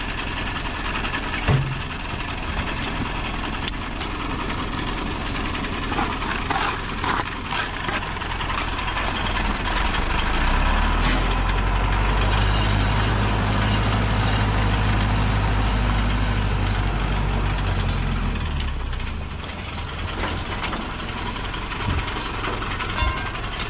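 An engine running steadily, getting louder and deeper from about ten seconds in and easing back near eighteen seconds, with scattered short knocks over it.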